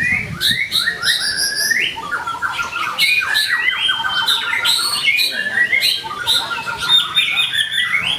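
White-rumped shama (murai batu) singing without pause: a rapid, varied run of whistled phrases, rising and falling notes and fast trills.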